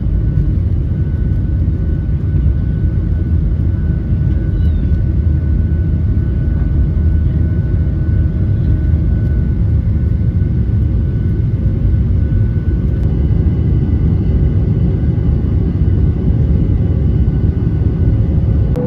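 Steady, loud low rumble of a vehicle in motion, with faint steady whining tones above it.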